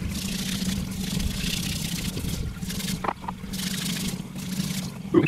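Water running from a garden hose over a stone casting that is being scrubbed with a hand brush, with a steady low mechanical hum underneath. A short, sharp sound about three seconds in and a louder one near the end.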